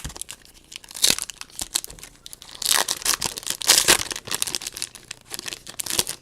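Trading card pack wrapper being torn open and crinkled, a run of crackling rips that is loudest in the middle, with a few sharp ticks around it.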